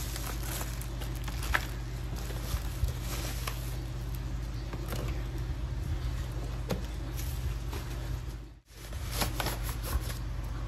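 Rustling and crinkling of plastic packaging as it is handled: a bubble-wrap mailer, then the thin foam sheet around a keyboard, with light taps and clicks of cardboard and plastic. A steady low hum lies under it. The sound cuts out briefly about eight and a half seconds in.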